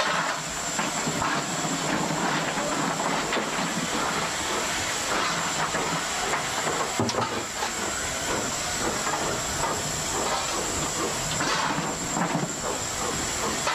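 LNER Gresley A4 Pacific steam locomotive hissing steam steadily, with irregular knocks and puffs beneath the hiss, as the engine is readied to move off.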